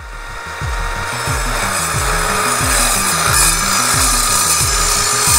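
Evolution R210 mitre saw's electric motor and multi-material blade cutting through a steel tube: a steady high grinding whine. Background music with a steady beat plays underneath.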